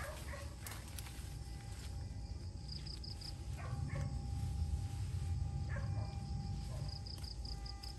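Outdoor ambience: a steady low rumble under runs of a rapid, high repeating chirp, with a few short animal calls and a thin steady tone.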